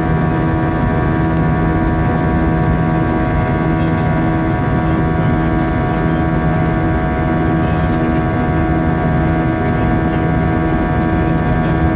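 Steady cabin noise inside an Airbus A320-232 airliner: a continuous drone of its IAE V2500 turbofan engines and airflow, with several steady hum tones, some of them pulsing gently.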